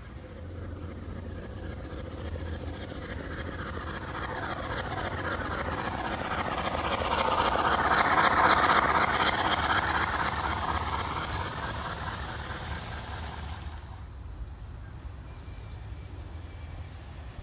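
A large-scale garden-railway model train, a steam locomotive with tender and passenger car, rolling past on its track. The rolling noise grows louder to a peak about halfway through, then fades away, with a steady low hum underneath.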